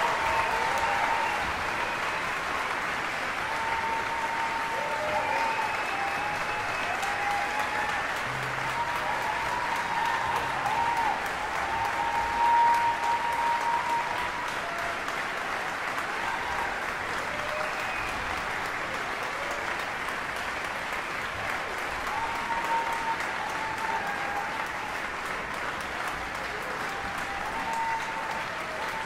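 Audience applauding steadily and at length after an orchestra performance, with a few drawn-out high calls rising over the clapping.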